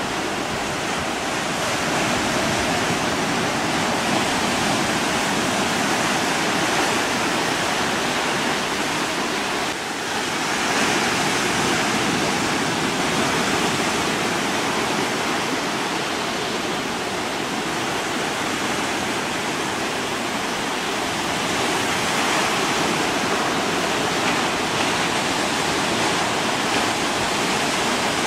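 Steady, even rushing noise with no distinct events, and a faint steady hum underneath.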